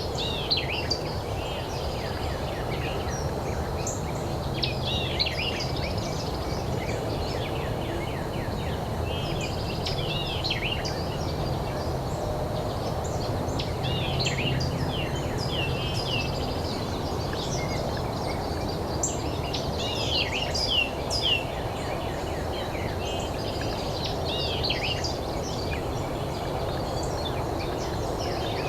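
Small birds chirping and singing again and again over a steady low background rush of outdoor noise.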